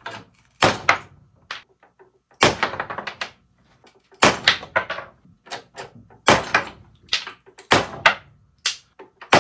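A string of sharp wooden knocks and cracks, about one a second, from small glued wooden test blocks. The blocks are handled and set into a jack-loaded shear tester, broken apart at the glue joint, and put down on the wooden bench.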